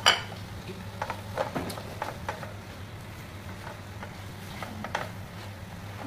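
Plastic spatula knocking and scraping against a nonstick wok while stirring snails and chopped onion: a sharp knock at the start, then scattered light scrapes and taps, over a low steady hum.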